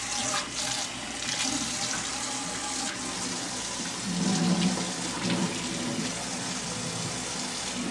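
Kitchen faucet running a steady stream into a stainless steel sink, left on to warm up to temperature. A brief low hum joins it about four seconds in.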